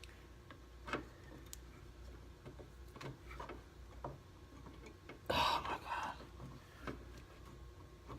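Scattered small plastic clicks and knocks as a headlight bulb cover and connector are worked by hand and fail to seat, with a louder, longer rustling burst about five seconds in.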